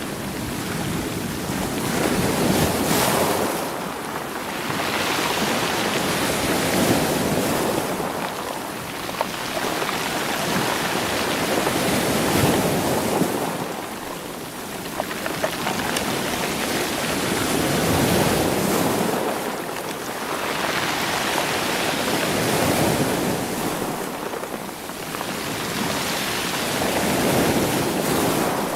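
Sea waves washing onto a rocky, stony shore, rolling the rocks as they surge in and draw back. The wash swells and ebbs about every five seconds.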